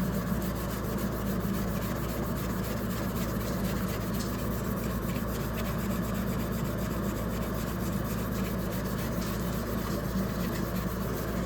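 Steel wool scrubbing hard and fast over a dirty part, a steady run of quick rubbing strokes.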